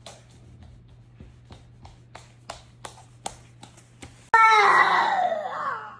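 A run of about a dozen sharp taps, a few a second and unevenly spaced. About four seconds in, a toddler's loud, drawn-out cry falls in pitch and lasts about a second and a half.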